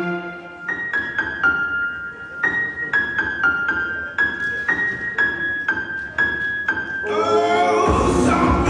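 Recorded music: a piano plays a slow melody of single notes, each struck and dying away, about two a second. Near the end sustained chords and a deep bass come in as a fuller arrangement starts.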